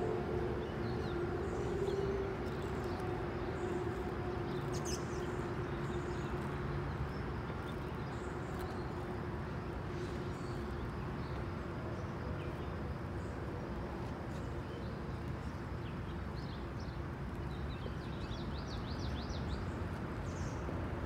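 Outdoor ambience: a steady wash of background noise with scattered short bird chirps, more of them near the end. A steady hum fades out in the first two seconds or so.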